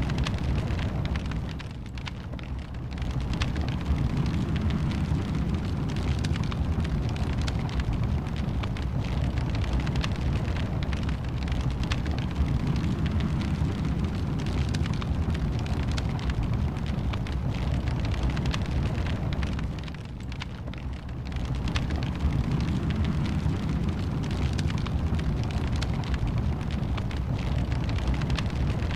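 Wood fire burning in a fireplace: a steady low rumble of flames with a constant scatter of small crackles and pops. It eases off briefly twice, about two seconds in and again near twenty seconds.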